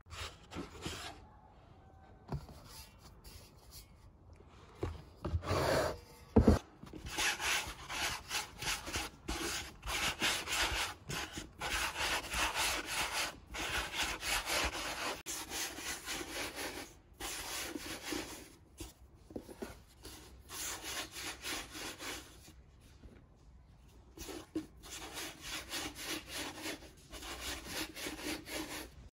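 Palms rolling dough back and forth on a floured wooden board, a rhythmic rubbing on wood with a few short pauses. One sharp knock about six and a half seconds in.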